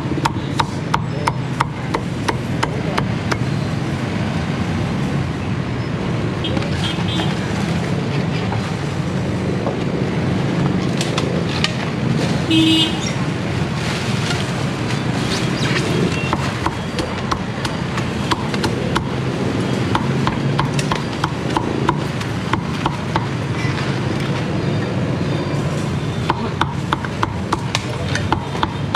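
Cleaver chopping crispy roast pork on a thick wooden chopping block: runs of sharp knocks, several a second, coming in bursts over steady street traffic noise. A brief high toot sounds about halfway through.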